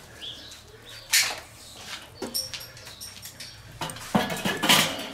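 Charcoal briquettes being pushed around by a gloved hand on the charcoal grate of a Weber kettle grill, with scattered scrapes and clinks. Near the end the steel cooking grate is set on the kettle with a couple of louder metal clanks.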